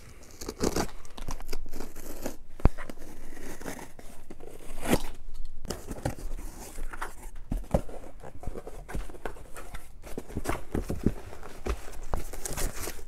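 Packing tape on a cardboard shipping box being cut and torn open and the flaps pulled apart: irregular scraping, ripping and crinkling of tape and cardboard, with a sharp knock about two and a half seconds in.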